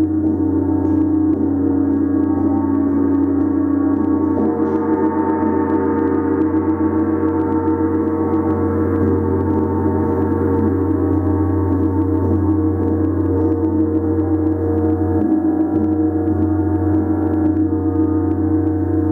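Large Jupiter planetary gong kept sounding with a mallet: a steady, dense wash of many overlapping ringing tones over a deep hum, with no single strike standing out.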